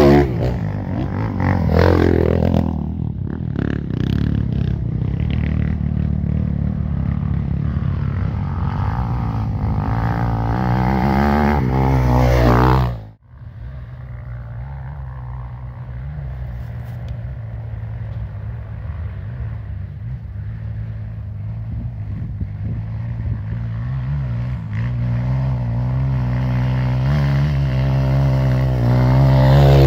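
Off-road dirt bike engine running as the motorcycle descends a steep trail, its note rising and falling with the throttle. The sound cuts out abruptly about 13 seconds in and resumes, and the engine grows louder near the end.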